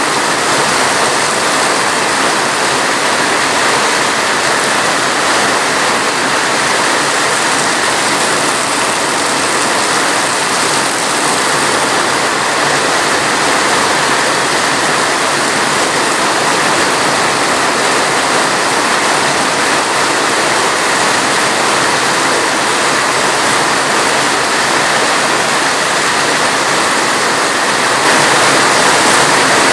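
Steady, dense rain: an even, unbroken hiss of rainfall with no separate drops or thunder standing out, getting slightly louder near the end.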